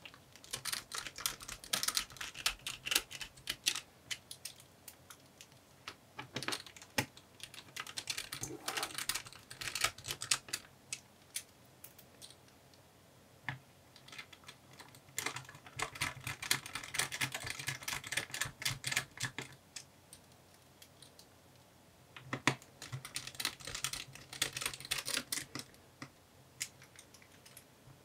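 Small Phillips screwdriver driving screws into a laptop's battery mounts: rapid light clicking and ticking in several bursts, with short pauses between screws.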